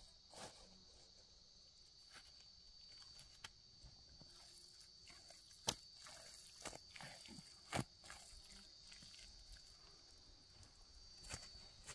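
Near silence with a faint steady high insect buzz. Over it come scattered soft scuffs and knocks as the man works by hand on dry earth and scoops mud, with two sharper clicks a little after halfway through.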